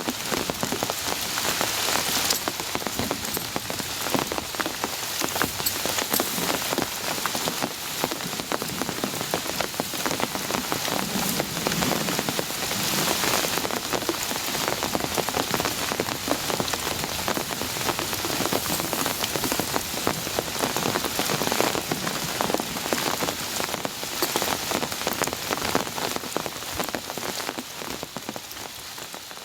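Heavy rain falling, a dense crackle of drops striking a surface, fading out near the end.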